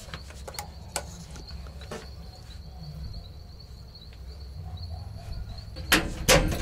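Doorbell buzzer sounding a high, steady trill for about five seconds after its button is pressed. Near the end come two sharp clicks from the door's lock.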